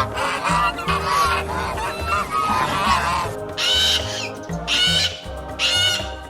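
Bird calls over background music with a steady beat: honking calls in the first half, then higher, shorter calls about once a second.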